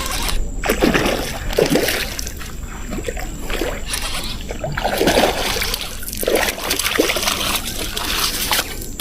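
Water splashing and sloshing in irregular surges, with trickling in between.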